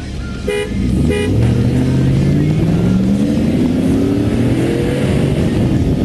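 Two short horn toots as a start signal, then a V8 pickup engine with open exhaust launching at full throttle from a standing start, its note climbing steadily for about four seconds as the truck accelerates.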